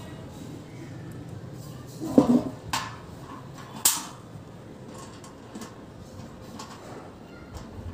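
Metal clicks and clinks of small screws, nuts and bolts being handled and fitted to the metal mounting bracket on the back of a satellite dish. A few sharp knocks come two to four seconds in, followed by lighter ticking.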